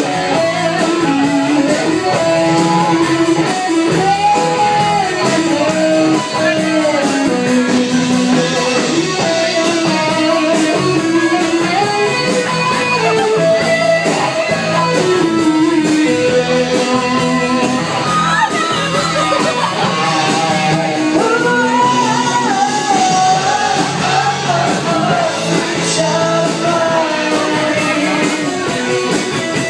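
Loud music with a singing voice over a steady beat.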